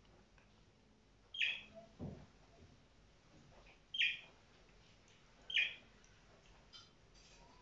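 A towel sliding on a tile floor under bare feet during plank knee tucks: three short swishes a second or two apart, with a soft thump about two seconds in.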